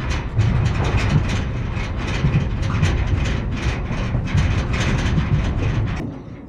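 Loud, continuous metallic rattling and clanking, typical of a cattle trailer or stock-handling equipment with cattle moving in it. It cuts off abruptly near the end.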